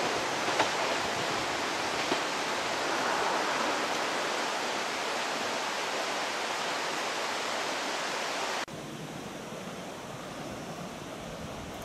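Steady rushing of river water in a gorge, with a couple of faint clicks in the first two seconds. About nine seconds in it cuts off abruptly to a quieter, duller wash of water and wind.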